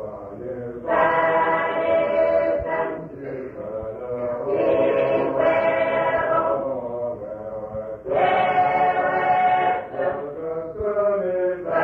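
A group of voices singing together in long held phrases of two to three seconds each, with short breaths between them.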